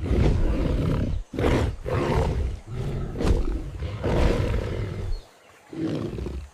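Tiger roaring and growling: about four long, deep roars in a row, each lasting a second or more, with brief pauses between.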